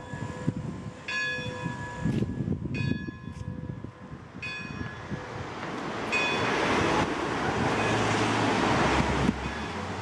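Bell of a giant cuckoo clock striking four times, each ringing note about a second and a half apart. Over the last few seconds a rushing noise grows louder, then stops suddenly.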